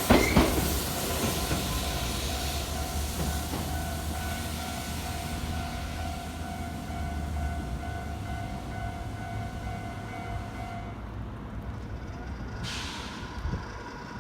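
A train passing over a level crossing: a last couple of wheel clacks over the rail joints at the start, then its rumble fading away. The crossing bell rings steadily and stops about eleven seconds in.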